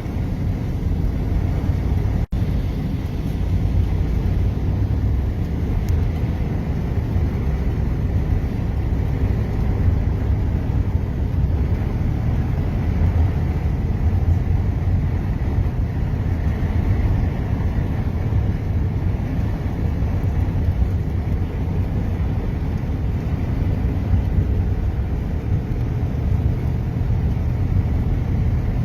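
A car driving, with a steady low rumble of road and engine noise. The sound drops out very briefly about two seconds in.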